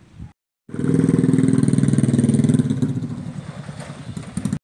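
A motorcycle engine running close by, its exhaust pulsing quickly. It cuts in abruptly after a brief silence, holds loud and steady for about two seconds, then fades gradually before cutting off suddenly.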